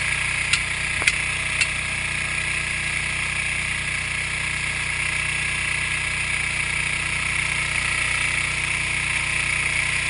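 An engine runs steadily under a constant hiss of water jetting from a fire hose, with three sharp clicks in the first two seconds.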